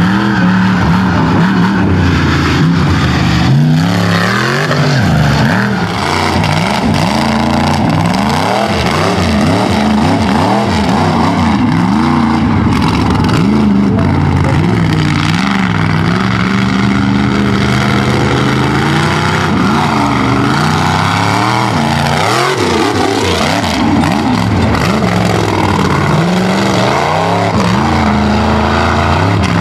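Mega truck engines revving hard again and again, the pitch climbing and dropping with the throttle as the trucks race a dirt track.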